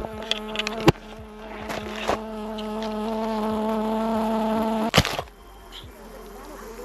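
A bee buzzing close to the microphone, a steady hum that swells for about four seconds and then stops, one of the bees from a disturbed hive. Two sharp knocks of the camera being bumped, about a second in and about five seconds in.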